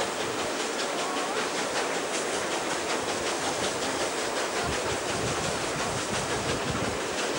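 Passenger trains running at speed side by side, heard from an open carriage window: steady running noise with wheels clicking over the rail joints and a steam hiss. Low wind buffeting on the microphone builds from about halfway.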